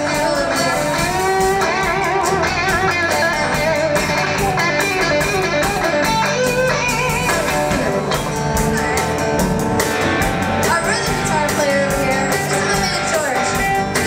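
Live band playing, with an electric guitar to the fore over drums and bass guitar.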